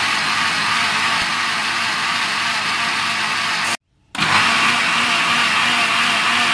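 Electric blender running steadily at speed, whirring a liquid mix of lemon juice, mint leaves and water. The sound breaks off abruptly for a moment about four seconds in, then the blender is running again.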